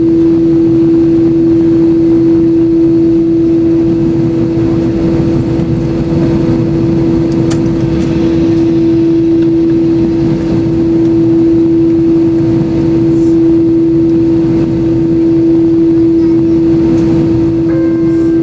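Steady cabin noise inside an Airbus A321-200 with its engines running: a low rumble and a constant droning tone that holds one pitch throughout.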